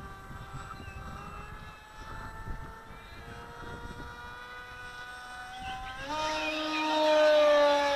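Radio-controlled delta-wing model plane flying overhead, its propeller and motor giving a steady pitched whine that climbs slowly. About six seconds in the whine jumps higher and grows much louder.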